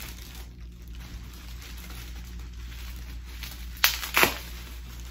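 Plastic packaging crinkling as a bubble-wrapped potted plant in a plastic bag is handled, with two sharp crackles close together near the end.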